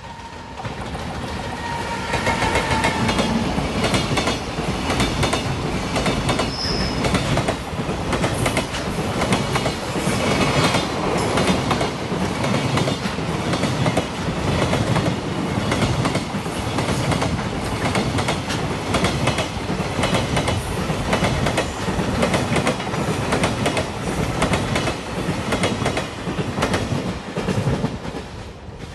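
Container freight train passing close by at speed: a loud steady rumble with the wheels clacking over rail joints in a fast, even rhythm, dying away near the end.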